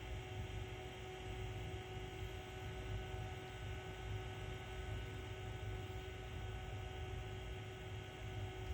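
Macintosh SE running with its hard drive spun up: a steady electrical hum with several steady tones.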